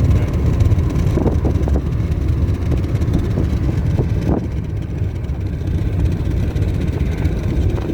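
Steady low road and engine rumble of a moving car, with a few brief knocks from bumps about a second in and again about four seconds in.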